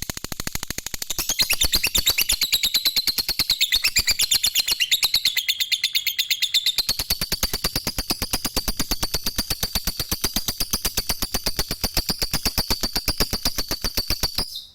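Lovebird giving its long, unbroken chattering trill (the 'ngekek' call): a fast, even string of sharp notes, about ten a second, over a high wavering pitch. It cuts off suddenly near the end.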